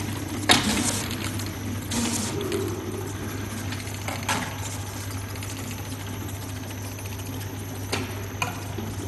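Automatic bottle labeling machine running: a steady motor hum under a noisy whir, with a few short sharp clicks at irregular moments, the loudest about half a second in.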